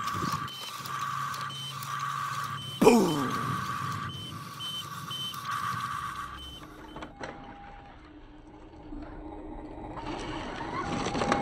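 Toy radio-controlled Mercedes-Benz dump truck's sound module beeping its reversing warning, about once a second, until about six seconds in. A sudden loud knock comes about three seconds in.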